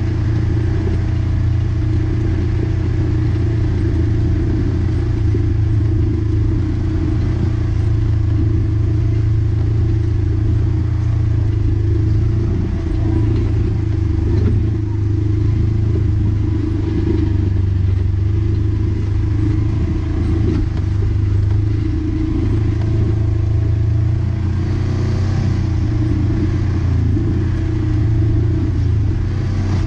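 Side-by-side UTV's engine running steadily as it drives along a dirt trail, heard from inside the cab.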